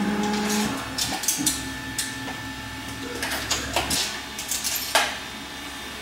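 Stepper motors of a CNC-converted X2 mini mill holding one steady whining pitch that stops under a second in, then a low hum with scattered metallic clicks and clinks of hands working a mill table and tools.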